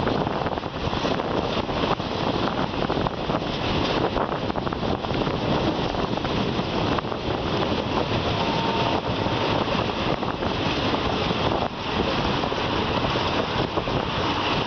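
Coupled diesel multiple-unit train running on the track: a steady rumble and rail noise with irregular clicks and knocks, and wind buffeting the microphone.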